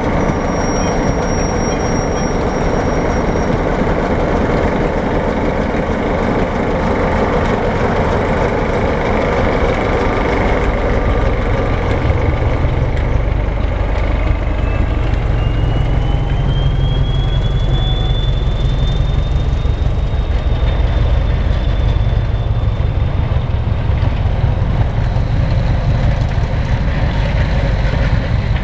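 Diesel locomotive running, its deep rumble growing louder about halfway through, with a high whistle that rises in pitch and then holds.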